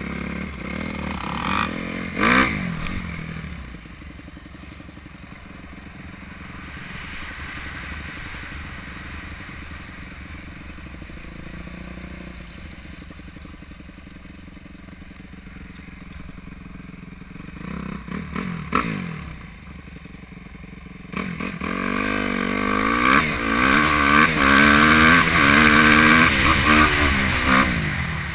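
Suzuki RM-Z250 four-stroke single-cylinder dirt bike engine, heard from the rider's helmet. It revs briefly near the start, runs quieter and steady through the middle, then revs hard up and down over the last several seconds as the bike accelerates across the dirt.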